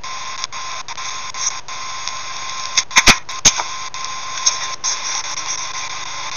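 Steady hiss of recording noise with a faint steady high tone, and a quick cluster of three or four sharp clicks about three seconds in.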